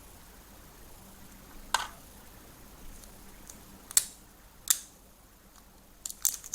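Sharp plastic clicks and taps from handling AAA batteries and a toy's plastic battery compartment: single clicks about two, four and four and a half seconds in, then a quick run of clicks near the end.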